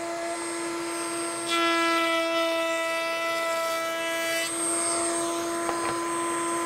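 Table-mounted router spinning a tongue-cutter bit with a steady high whine. About a second and a half in, it grows louder and harsher for some three seconds as a board is fed through the bit to cut a tongue, then settles back to the free-running whine.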